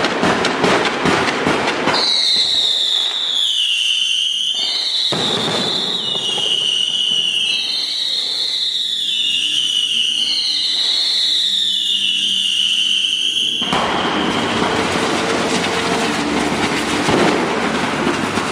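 Fireworks: dense crackling, then from about two seconds in a string of shrill whistles, each falling in pitch, from whistling fireworks. About three-quarters of the way through, the whistles stop and heavy crackling returns.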